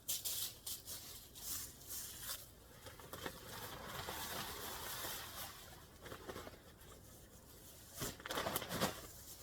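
Dry, mulched leaves and a bag rustling and crinkling in irregular bursts as they are handled, with a louder stretch of rustling about eight seconds in.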